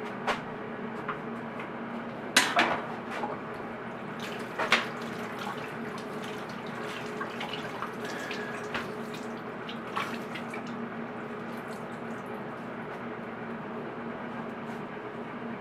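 Steady background hum with a few sharp clicks and knocks of things being handled, the loudest cluster about two and a half seconds in. The stand mixer itself is not running.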